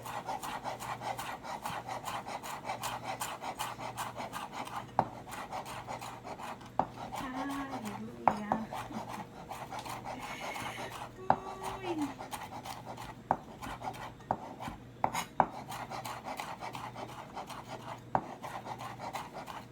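Knife chopping fresh parsley on a cutting board: quick, even cuts, several a second, with a few harder knocks along the way.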